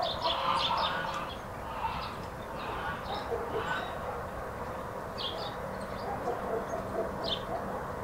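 Village outdoor ambience: hens clucking and small birds giving short, scattered chirps, over a steady low background noise.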